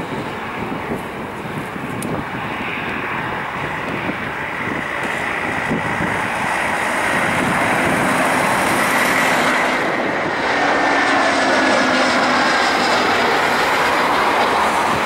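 Airbus A320-214's CFM56 turbofan engines at approach power as the airliner comes in low to land, a steady jet rumble growing louder through the pass. A faint engine whine sits on top and falls slightly in pitch in the second half.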